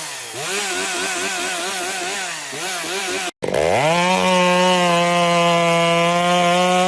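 Chainsaw engine revving. For the first three seconds the throttle is pulsed so the pitch rises and falls about three times a second. After a sudden cut, a chainsaw revs up and is held at a steady high pitch at full throttle.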